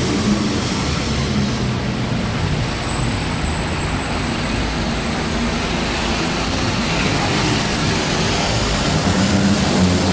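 A New Holland super stock pulling tractor's turbocharged engine running flat out under load as it drags the sled. The deep, steady roar has a high, steady turbo whistle riding over it.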